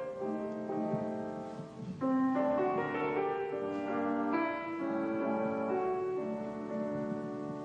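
Background music led by piano, slow sustained chords with a new chord struck about two seconds in.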